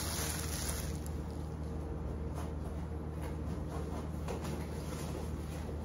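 A clear plastic parts bag crinkling as it is squeezed in the hands for about the first second, then a steady low hum with a few faint rustles and taps.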